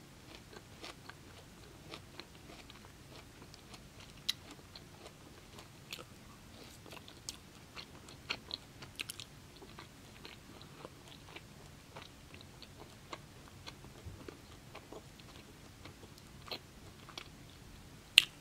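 A person chewing food, with many small crunches and clicks, and one sharp click near the end.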